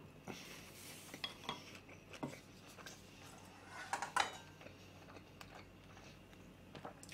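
Quiet clinks and scrapes of a ladle in a metal pot of ramyeon soup as broth is scooped out, loudest about four seconds in.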